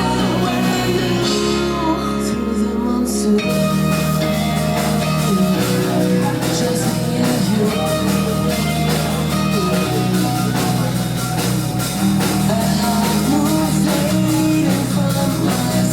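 Rock song with guitar, drums and a singing voice. The drums drop out for about two seconds shortly after the start, then come back with a steady beat.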